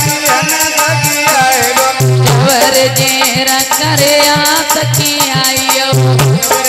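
Loud Indian folk dance music: a winding lead melody over a steady hand-drum beat, with jingling rattle-like percussion throughout.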